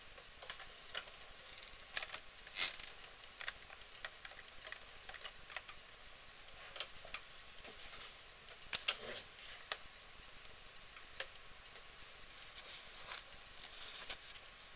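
Irregular light clicks and taps of small hand-held objects being handled close to the microphone, a few of them sharper and louder, over a faint hiss.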